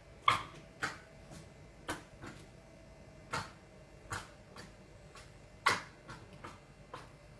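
Irregular sharp clicks and knocks, about a dozen spread unevenly over several seconds, from a fox cub shifting about inside a dishwasher.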